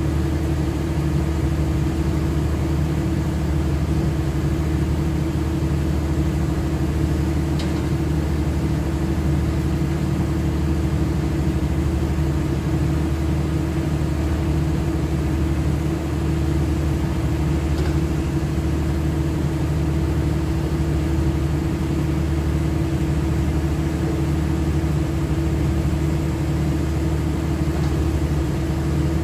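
Large engine running at a steady speed: a constant drone with a strong low hum that does not change.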